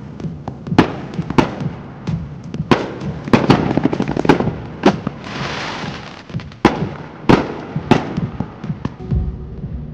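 Fireworks display: a rapid, irregular run of bangs from aerial shells bursting and comet cakes firing. About halfway through there is a second or so of steady hissing.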